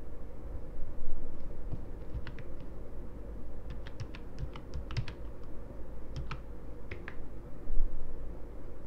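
Computer keyboard keys clicking in irregular runs of taps, over a steady low background hum. There is a dull low bump about a second in and another near the end.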